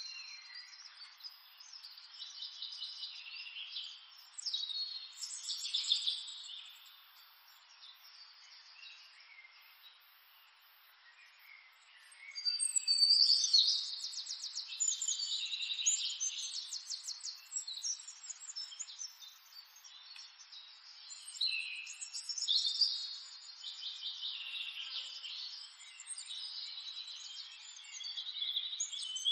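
Wild birds chirping and calling, many short high calls and quick trills overlapping. A quieter lull comes a third of the way in, then the calls pick up again with fast trilling.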